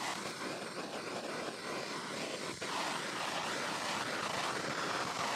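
Hand-held gas blowtorch burning with a steady hiss as its flame is played over the skin of a beer-can chicken to crisp it.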